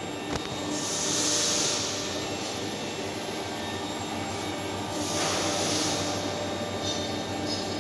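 Automated welding gantry at work: a steady roar and hum with hissing, plausibly from pulsed MIG welding at high current. The hiss rises in louder surges about a second in and again around five seconds.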